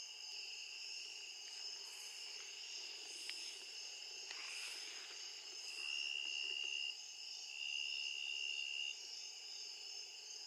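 Evening chorus of crickets and other night insects: steady, shrill, overlapping high-pitched trilling. A louder, closer trill comes in three times for about a second each, from a little past halfway.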